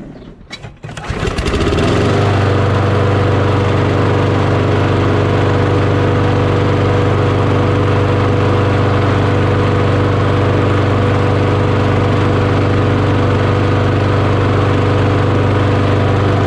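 A Craftsman 22-inch self-propelled lawn mower's Briggs & Stratton Quantum single-cylinder engine starts about a second in, then runs steadily at one even speed.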